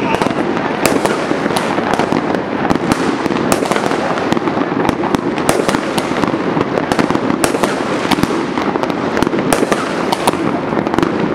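Many fireworks going off at once: a dense, unbroken crackle with sharp bangs scattered through it, several a second.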